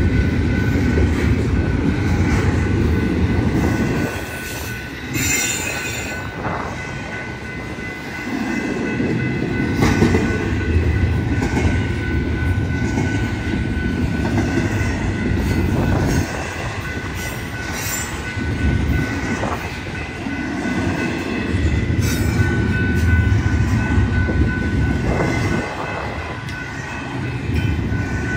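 Double-stack intermodal well cars of a freight train rolling through a grade crossing. The rumble and rattle of the wheels swell and drop every few seconds as each car passes, with occasional sharp clacks and a steady high-pitched squeal above.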